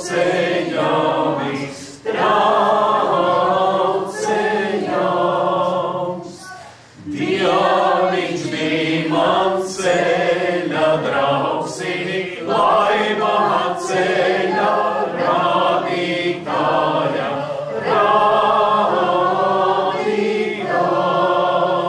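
A group of people singing a Latvian folk song together, unaccompanied, in sung phrases a few seconds long with short breaks for breath between them.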